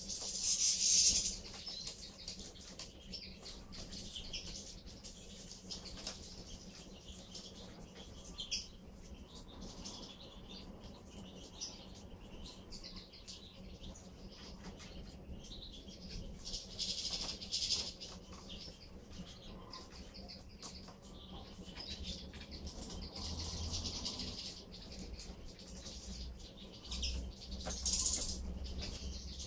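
A flock of European goldfinches feeding, wings fluttering as birds flit and land among the seed heads. Bursts of high twittering calls come now and then, the loudest about a second in and again near the end.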